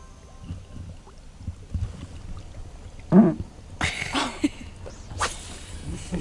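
Low rumble of wind and handling noise on the microphone. About three seconds in comes a loud short yelp, followed by excited cries and a sharp burst near the end.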